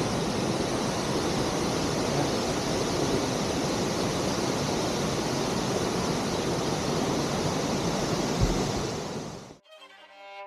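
Waterfall's steady rush of falling water, a loud even hiss. Near the end it cuts off abruptly and solo violin music begins with sustained notes.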